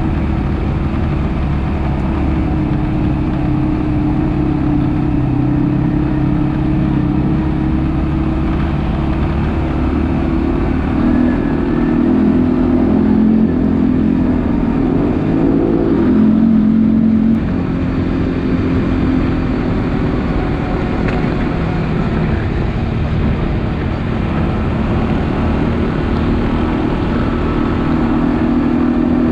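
ATV engine running under way. About halfway through it speeds up and climbs in pitch, then drops back suddenly and carries on steadily.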